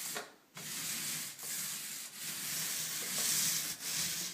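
9-inch medium-pile paint roller rolling wet emulsion up and down a wall: a steady sticky hiss of the nap on the plaster, dipping briefly at each turn of the stroke about once a second, with a short silence near the start.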